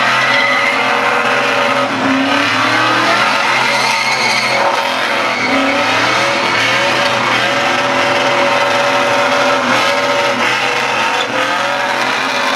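Holden VR Commodore doing a burnout: the engine is revving hard and loud, its pitch dipping and climbing back a few times, over the squeal of the spinning rear tyres.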